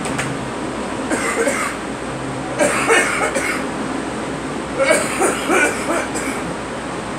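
A girl coughing in three bouts, each a quick run of coughs: a short one about a second in, a louder one near three seconds, and a longer one around five to six seconds. A steady low hum runs underneath.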